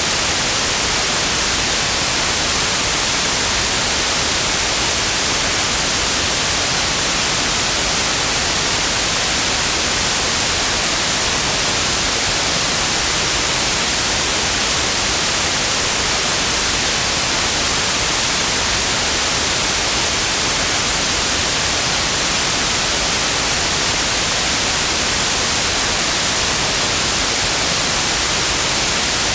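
Steady synthetic white noise: an even, unchanging hiss across the whole frequency range, brightest in the treble.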